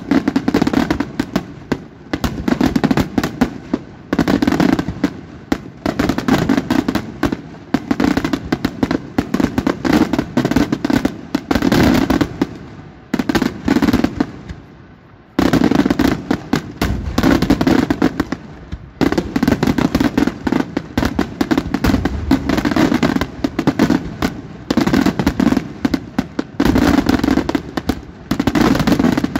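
Daytime aerial fireworks: rapid volleys of shell bursts and sharp bangs packed closely together. Near the middle the reports thin out and fade for a couple of seconds, then resume suddenly at full strength.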